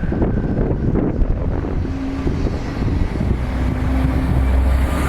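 Wind buffeting the microphone, with a steady low engine hum coming in about two seconds in.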